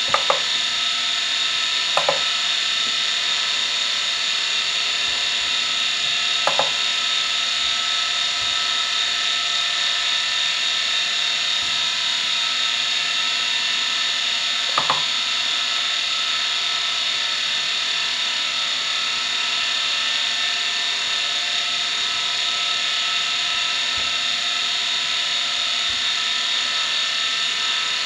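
Seagate ST9235AG laptop hard drive spinning with a steady high-pitched whine, its head actuator seeking in short double clicks four times in the first half.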